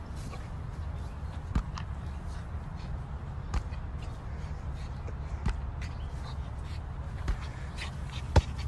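Wind rumbling on the microphone, with a short sharp thud about every two seconds as an inflatable beach ball is hit and bounces.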